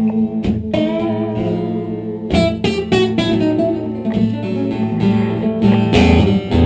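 Acoustic guitar playing a slow, bluesy instrumental passage, chords strummed over a picked bass line.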